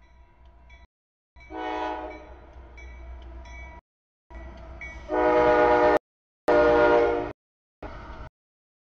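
CSX locomotive 430's air horn sounding in long blasts as it approaches the grade crossing, a chord of several notes at once, loudest about five to seven seconds in. The sound cuts out completely for fractions of a second several times.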